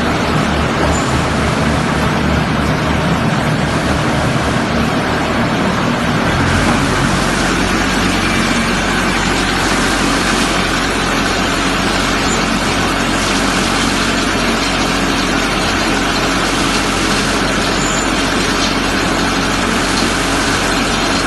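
Diesel engine of a concrete pump running steadily. About six and a half seconds in its low pulsing gives way to a steadier hum.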